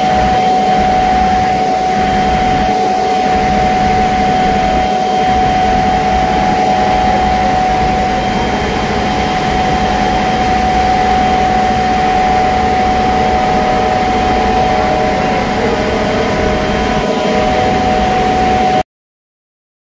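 Bitzer OSNA screw compressor running steadily, a loud even machine drone with a steady high whine over it. The sound cuts off suddenly near the end.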